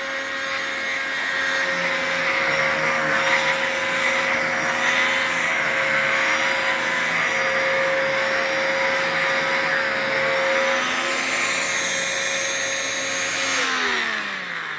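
Dirt Devil Multi-Surface Rewind upright vacuum cleaner running steadily at full suction, then switched off near the end, its motor whine falling in pitch as it spins down.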